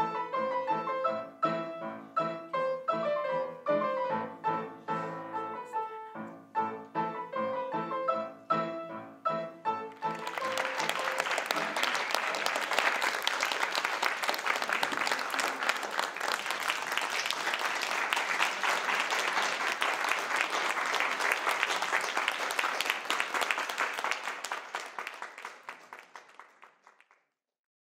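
Piano duet, four hands on one upright piano, playing the final phrases of a piece, which ends about a third of the way through. Audience applause follows and fades out near the end.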